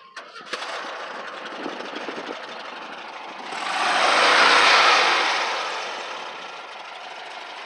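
Air-cooled Volkswagen Beetle flat-four engine catching and starting about half a second in, revving up and back down around the middle, then idling steadily.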